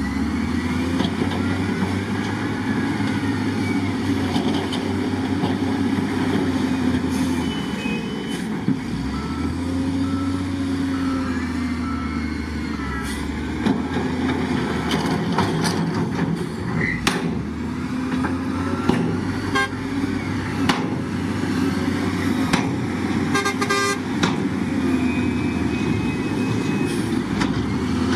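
Diesel engines of a dump truck and an SDLG L956H wheel loader running, rising and falling in pitch as they work. Short repeated beeps, like a reversing alarm, and a few sharp clanks sound over them in the second half.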